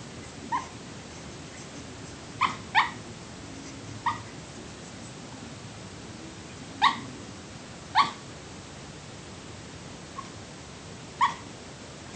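Boxer puppy yipping in its sleep as it dreams: about eight short yips at irregular intervals, two in quick succession about two and a half seconds in.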